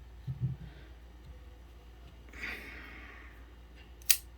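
Folding knives being handled on a table: a few soft low bumps at the start, a breathy exhale about halfway through, and one sharp click near the end.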